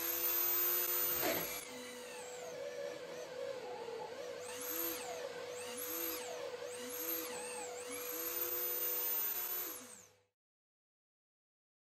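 Drill press spinning a toothed hole saw through plywood. A steady motor hum runs under a cutting noise, and the pitch sags and recovers several times as the saw is fed into the wood. The sound stops abruptly about ten seconds in.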